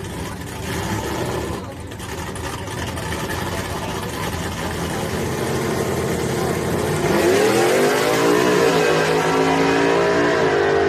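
Drag-racing pickup trucks' engines rumbling at the start line, then launching hard about seven seconds in, the engine note climbing with two brief dips as they shift gears.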